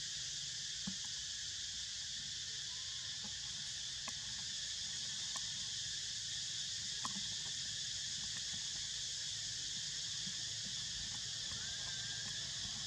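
Steady high-pitched insect chorus, an even unbroken hiss, with a few faint clicks over it.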